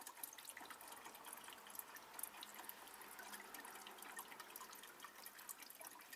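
Oil draining out of an X-ray tube head into a tub: a faint steady trickle with many small drips ticking through it.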